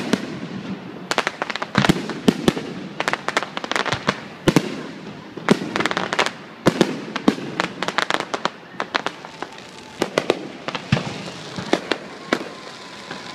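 Fireworks display going off: rapid clusters of sharp cracks and bangs from bursting aerial shells over a steady hiss.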